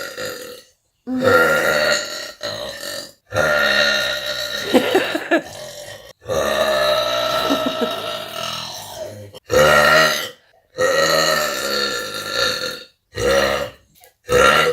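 A woman belching loudly again and again: a run of about seven pitched belches, several drawn out for two to three seconds, with short silent gaps between them.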